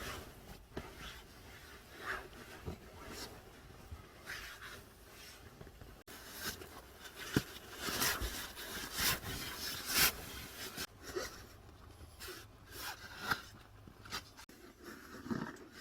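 Irregular rubbing and scraping noises with a few brief knocks.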